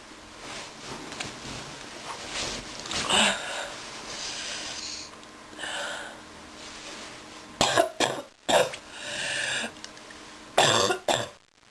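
A person with a sick cough coughing repeatedly. Softer coughs and breaths come through the first half, then a sharp cluster of about three coughs two-thirds of the way in and another two near the end.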